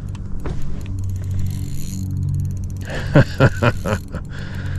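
Spinning reel being cranked steadily to bring in a hooked crappie, its gears giving a steady low whir with fine fast ticking. A few short, louder noises come about three seconds in.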